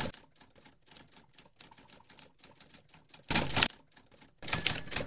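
Typewriter sound effect: a run of light key clicks, a louder clatter about three seconds in, and a ringing ding near the end.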